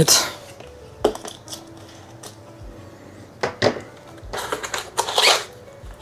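Cardboard shipping box being opened by hand: a few sharp clicks and knocks as the taped lid is worked loose, then a longer scraping rustle of cardboard and tape as the lid is pulled open, about four to five seconds in.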